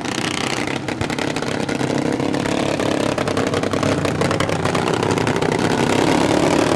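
Several racing lawn mowers' small engines running together at part throttle on a lineup lap, with a rapid rattly firing note that grows gradually louder as the mowers come closer.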